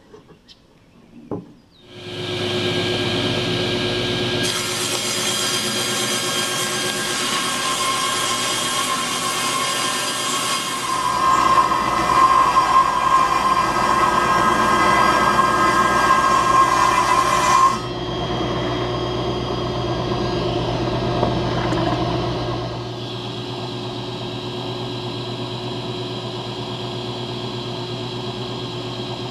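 Table saw started up and cutting through a sheet of MDF: the motor comes up to speed, then the blade runs in the cut with a loud hiss for about thirteen seconds. After the cut ends it keeps running at a lower, steady level. A couple of clicks come just before the start.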